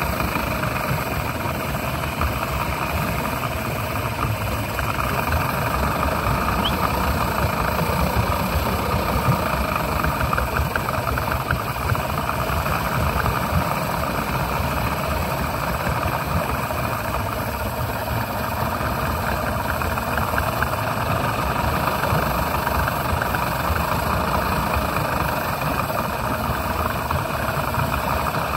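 Yamaha two-stroke outboard engine running steadily while fogging oil is sprayed into its intake to coat it for winter storage.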